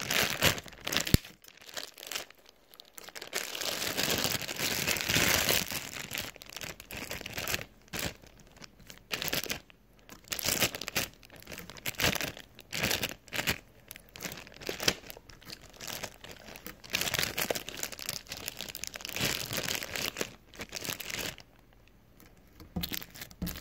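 Plastic packaging crinkling and rustling in irregular handfuls, with short tearing sounds, as a package is unwrapped by hand.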